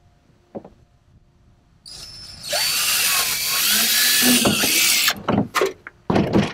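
Cordless drill run at speed for a few seconds, its motor whine wavering in pitch, then a few short trigger bursts.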